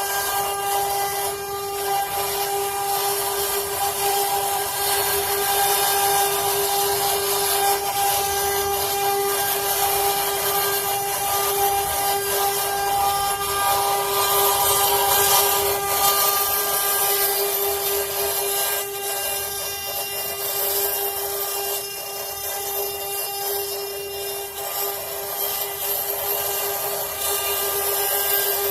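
CNC wood-carving router's spindle running with a steady high whine while the bit cuts into wood, giving a continuous rasping noise that eases off a little in the last third.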